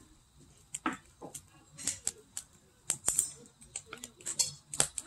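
Burning firewood in a fire pit crackling, with a dozen or so sharp, irregular pops scattered through a quiet background.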